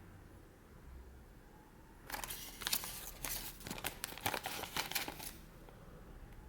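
Foil wrapper of a surprise egg crinkling and rustling for about three seconds, starting about two seconds in, with many small crackles.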